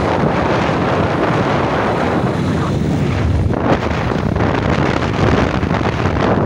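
Wind rushing across the microphone, a loud, steady noise, over the rumble of a moving vehicle.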